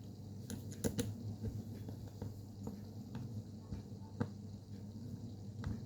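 Scattered light clicks and taps, irregular and a few strong ones about a second in and about four seconds in, over a low steady hum.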